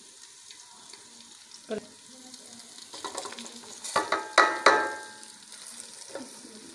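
Faint sizzle of onions frying in oil in a metal pot. About four seconds in, a plate of whole and ground spices is tipped into the hot oil, with several sharp knocks and a short metallic ring as the plate and spoon strike the pot.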